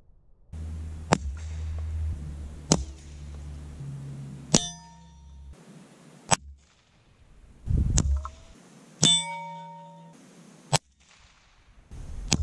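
.22 LR bullets from a suppressed gun striking a steel target, about six sharp metallic clangs roughly every second and a half to two seconds. Several hits leave the plate ringing briefly.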